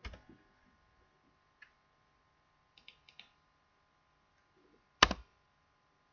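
A few scattered computer keyboard and mouse clicks, with a quick group of three about three seconds in and a sharper, louder click about five seconds in.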